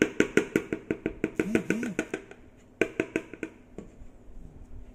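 Rapid, even tapping of a utensil against a mixing bowl, about seven short ringing taps a second, as batter is knocked off into the stand mixer's bowl. The taps slow and stop a little after two seconds in, then come again in a short run near three seconds.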